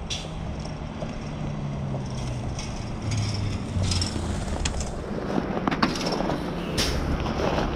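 City transit bus approaching along the road, its engine running with a low hum that grows gradually louder as it nears.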